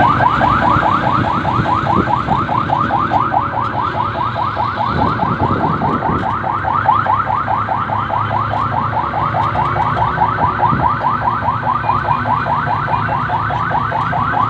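Electronic vehicle siren sounding a fast yelp: quick rising whoops, about five a second, with no break, over the low rumble of vehicles on the move.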